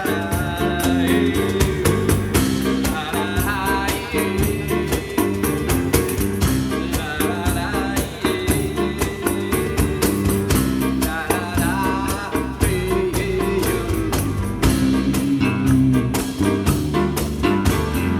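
Small acoustic jazz band playing live: busy hand percussion ticking throughout, a bass line and held low notes, with a wavering melodic line over the top.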